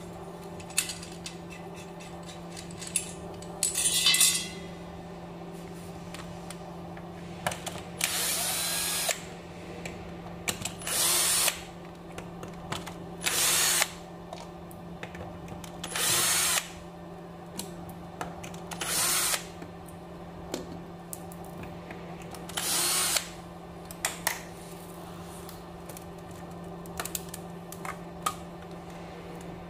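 Cordless drill-driver backing out the screws of an e-bike's frame cover plate, in several short runs of about a second each, with small clicks of screws and metal parts being handled between the runs.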